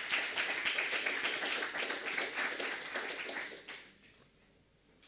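A small audience applauding, many hands clapping at once, dying away about four seconds in.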